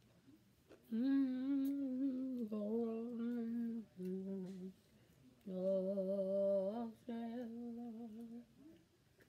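A woman humming a slow tune without words, in long held notes that step between a few pitches, in several phrases.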